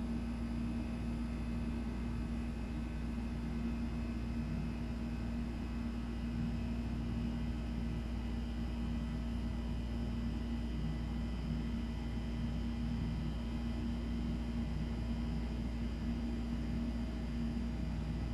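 A steady low hum with one constant pitched tone and a deep rumble beneath it, unchanging, with faint hiss above.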